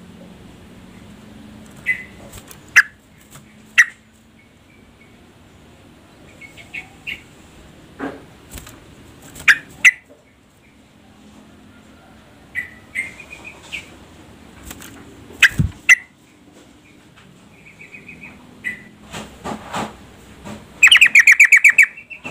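Female yellow-vented bulbul (trucukan) giving scattered short, sharp chirps and bubbly call notes, ending near the end in a loud, fast run of rapidly repeated notes. A single low thump comes about two-thirds of the way through.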